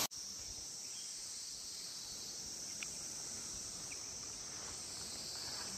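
Steady high-pitched chorus of forest insects, with a couple of faint short chirps about three and four seconds in.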